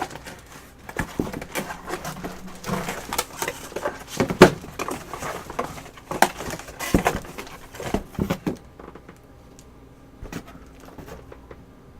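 Cardboard and plastic packaging rustling and knocking as packing is pulled off a boxed keyboard, with several sharp knocks; about three-quarters of the way through it thins to faint, scattered ticks.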